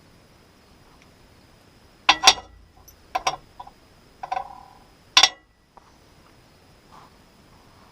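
Several sharp metal clanks and clinks, about five in three seconds with a brief ring on one of them: metal tools and parts being handled while taking the sprocket off the mill's bolt.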